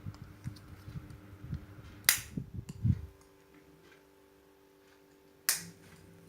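Shukaku SKUMF50 mini ceiling fan running with a steady hum, with uneven low rumbling over the first three seconds. Two sharp clicks stand out, about two seconds in and again about three and a half seconds later.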